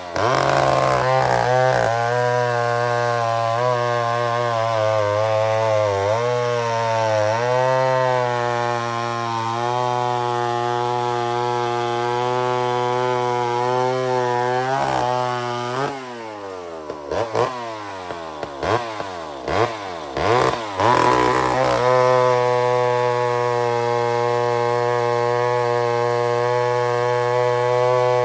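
McCulloch 797 two-stroke chainsaw with a .404 chain cutting through a large log at full throttle, its pitch wavering as the load changes. About halfway through it is revved up and down several times, then goes back into the cut, running at a steady high pitch.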